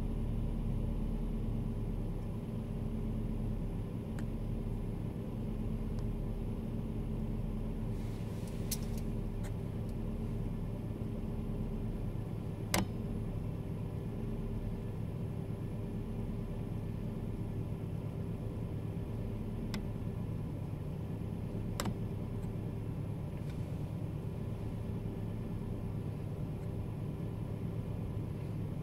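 Car engine idling steadily, heard from inside the cabin, with a steady low hum; two single sharp clicks stand out, one around the middle and one later on.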